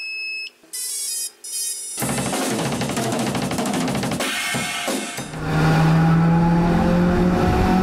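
Intro music for a logo animation: a few short high electronic beeps, then drums and cymbals from about two seconds in, joined by a strong held low tone from about five seconds in.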